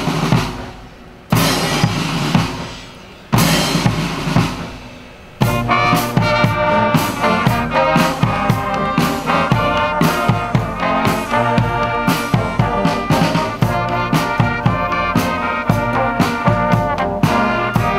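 Brass band music with drums. Three loud hits in the first five seconds each fade away, then trumpets and trombones play a tune over a steady drum beat from about five seconds in.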